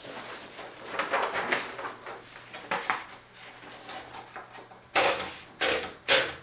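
Sheet of paper being wound into the platen of a 1930 Underwood No. 5 typewriter: paper rustling and the platen ratchet clicking, then several louder ratcheting strokes near the end.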